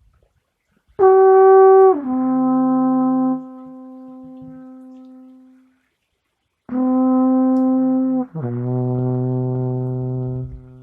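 Alphorn playing two long phrases: about a second in, a note steps down to a lower one held for over a second, and about seven seconds in, another note drops to a deep low note held for about two seconds. Each phrase dies away slowly after it ends.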